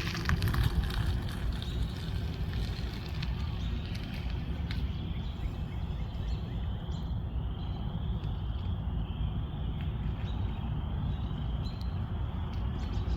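Electric bike being ridden: a steady low rumble of wind and road noise, with a faint high whine that wavers slightly in pitch from about a third of the way in.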